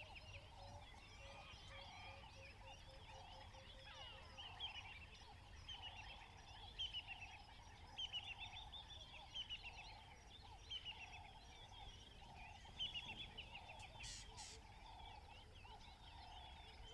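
Savannah ambience: birds calling in repeated bursts of quick, falling chirping notes every second or two, over a faint, steady pulsing chorus in the background. Two short sharp clicks near the end.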